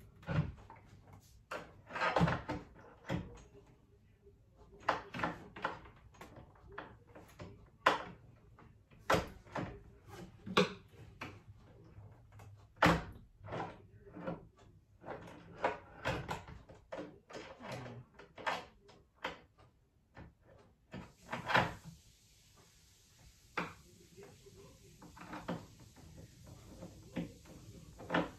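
Cabinet door and its hinges being handled while the door is hung and adjusted: irregular clicks and knocks as the door moves and the hinge parts are worked, a few of them louder.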